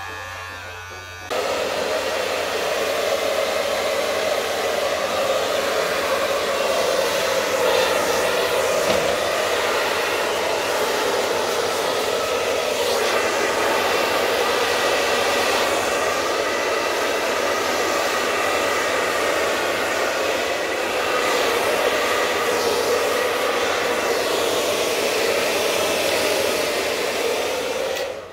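Electric hair clipper buzzing for about a second, then a handheld hair dryer cuts in suddenly and blows steadily at full power, its level swelling a little as it is moved over the hair, until it stops right at the end.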